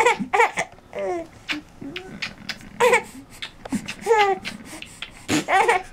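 Baby giggling in a string of short, separate bursts of laughter with bits of babble between them.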